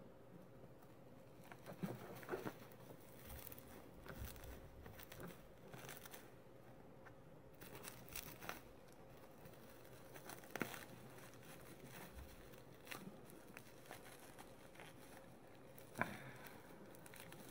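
Faint, irregular crinkling and small crackles of a clear plastic bag and bubble wrap being picked open with tweezers, with a sharper crackle near the end.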